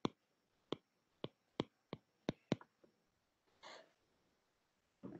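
Faint, sharp taps of a stylus tip on a tablet's glass screen while handwriting, about seven clicks in the first two and a half seconds. A short soft hiss follows a little after halfway, like a breath.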